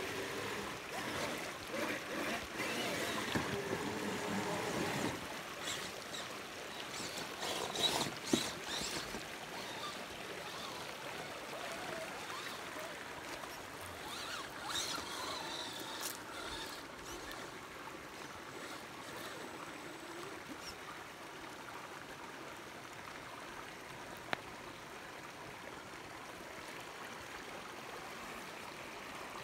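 A shallow rocky creek running steadily over stones, with a few brief louder noises in the first half.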